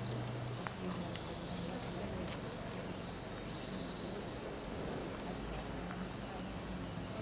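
Faint outdoor street ambience: a low steady hum with a couple of short high chirps, about a second in and again around the middle.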